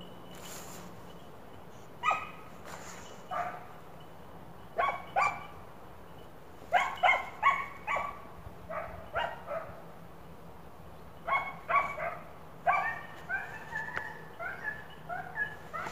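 Hunting hound giving tongue on a hare's scent trail: short barks in scattered clusters. Near the end they quicken into a rapid run of shorter yelps.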